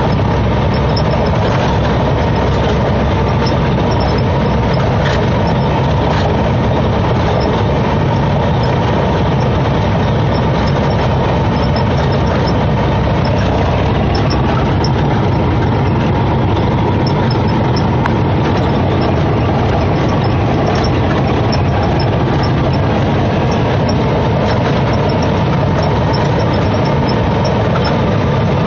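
Semi truck under way, heard from inside the cab: a steady drone of its diesel engine and road noise, with no change in speed or gear.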